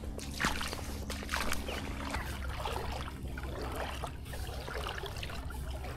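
Boots wading through shallow floodwater, sloshing and splashing with each step.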